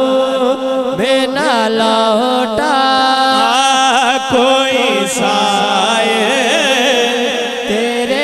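A naat sung by a male voice in long, wavering, ornamented phrases, with no clear words, over a steady held low tone.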